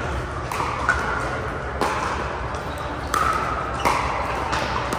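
Pickleball paddles striking a plastic ball: about six sharp, ringing pocks roughly a second apart, over a steady low hum.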